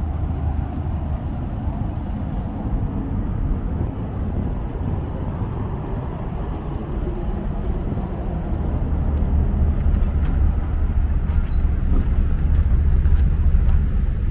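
Outdoor city ambience: a steady low rumble that grows louder in the second half.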